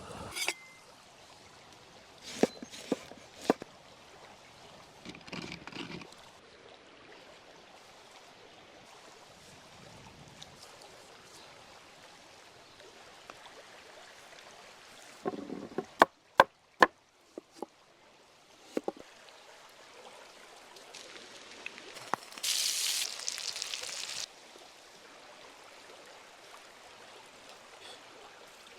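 Faint steady trickle of running water, broken by scattered handling knocks and scrapes, three sharp clicks about sixteen seconds in, and a louder hissing rush for a second or two near the end.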